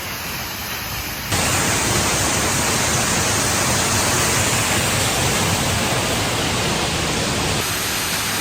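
Waterfall pouring, a steady, loud rush of water that steps up suddenly in level about a second in.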